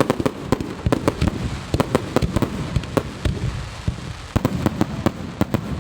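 Aerial fireworks display going off in a rapid, irregular string of sharp bangs and cracks, several a second, over a low rumble.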